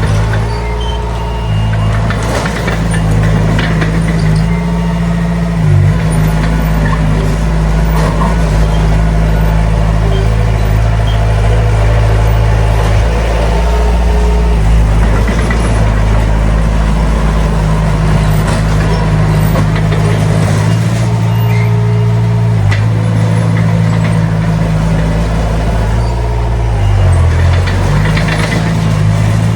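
Heavy earthmoving machinery's diesel engines running hard and steadily, with the engine note shifting now and then and occasional knocks of metal.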